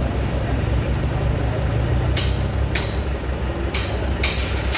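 Heavy machinery engine running steadily with a low drone. From about two seconds in, four sharp knocks sound over it.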